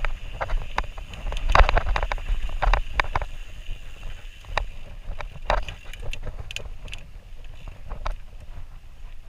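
Mountain bike riding down a dry dirt singletrack, heard from a camera on the rider: a low rumble of tyres and wind on the microphone with frequent sharp clicks and rattles from the bike over bumps, busiest in the first few seconds and thinning out after.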